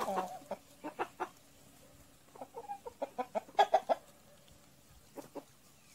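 A flock of chickens clucking in short, scattered calls while pecking at food, with a quicker run of louder clucks a little past halfway.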